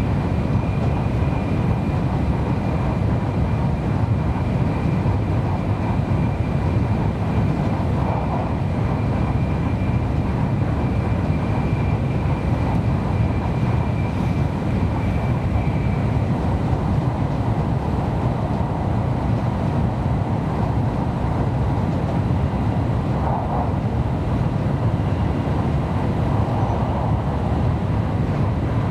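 Interior cabin noise of a Kyushu Shinkansen Sakura bullet train running on the line: a steady, even rumble of wheels, track and air. A thin high whine sits above it and fades out about halfway through.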